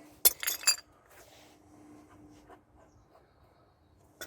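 A quick cluster of sharp metallic clicks from a wrench on a tie-rod adjuster, then faint scattered clicks of tool handling and one more click near the end.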